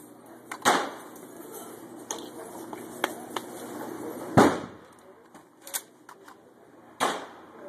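Three shotgun shots: sharp reports about a second in, about four and a half seconds in and near the end, each with a short echo, and a few fainter pops between them.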